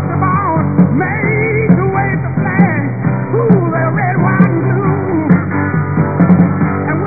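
A rock song with a singing voice over steady instrumental backing.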